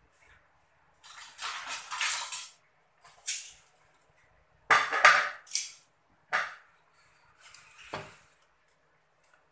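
Metal spatula scraping and knocking against a steel wok while stir-frying noodles, in irregular strokes with short pauses between. The loudest scrapes come about five seconds in.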